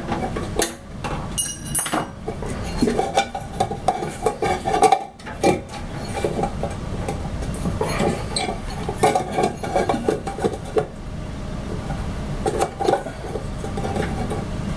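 Irregular light metal clinks and knocks as the old UV lamp assembly, a finned aluminium heatsink with a fan, is handled and worked free inside the printer's metal case, over a steady low hum.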